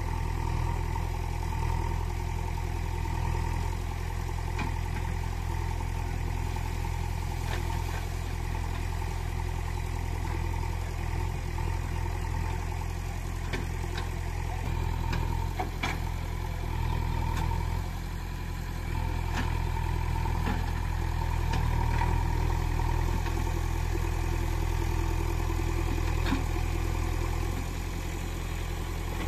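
An engine idling steadily, a machinery sound effect dubbed over the play with the toy diggers, with a few light clicks about midway and near the end.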